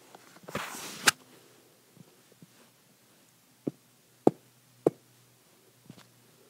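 Several sharp taps on a hard surface, likely the tablet screen or desk: the loudest about a second in, just after a brief rustle, then three more evenly spaced about half a second apart past the middle, with a few fainter ticks between.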